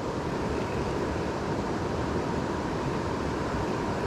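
Steady rushing of a flooded creek's fast current.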